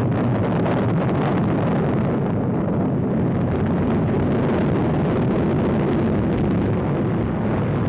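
Mercury-Atlas rocket lifting off, its engines giving a loud, steady rushing rumble that holds without a break.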